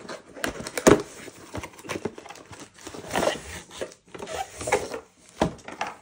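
Cardboard box and its packaging being handled and unpacked: irregular crinkling and rustling broken by sharp clicks and knocks, the loudest about a second in.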